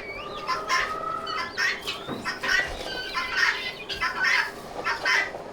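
Chickens clucking, many short calls from several birds overlapping over a faint steady hum.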